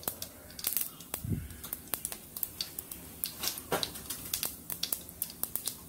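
Mustard and fenugreek seeds crackling and popping in hot oil in a clay pot: irregular sharp pops, several a second, over a faint sizzle.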